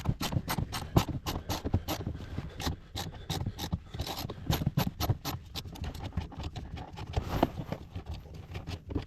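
Hand driver with a Torx bit clicking in quick, even strokes, about four or five a second, as a door-panel screw is backed out. The clicks thin out near the end as the screw comes free.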